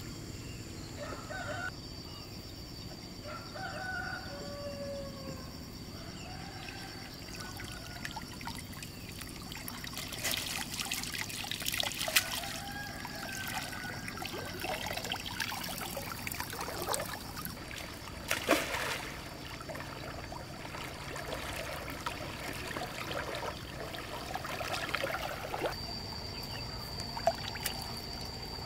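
Pond water splashing and sloshing in irregular bursts through the middle part, as someone wades and works in the water, over a steady high-pitched whine. A few short chirping calls are heard near the start.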